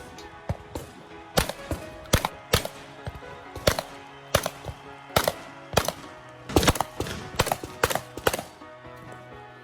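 Shotgun fired in rapid, irregularly spaced shots, about two a second, as in a practical shotgun stage, over background music.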